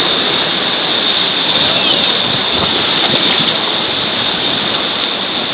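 Steady rush of river water in a small rapid around a raft.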